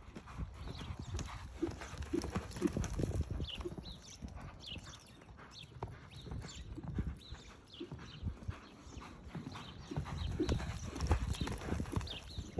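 Hoofbeats of a loping horse on soft arena sand, a rolling run of dull thuds that fades as the horse circles away and grows louder again near the end as it comes close.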